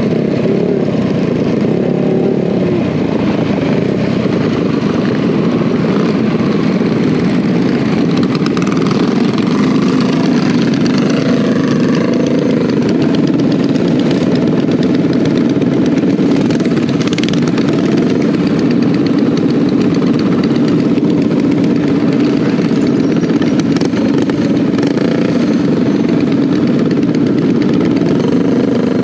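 A pack of minibikes with small single-cylinder Predator 212cc-type engines running: riding along, then slowing and idling together at a stop, with engines revving up and down a few times.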